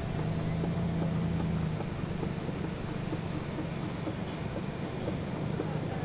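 Steady low rumble of heavy machinery running, with a low droning tone over it for about the first two seconds.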